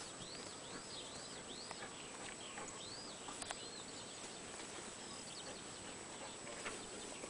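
A small bird chirping: a faint series of high notes, each rising and then falling, about two a second, which stops about three seconds in. After that only faint outdoor background with a few small clicks is left.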